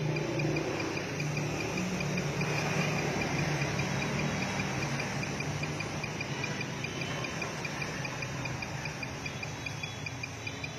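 A high-pitched chirp repeating in quick, even pulses over steady background hiss and a low hum.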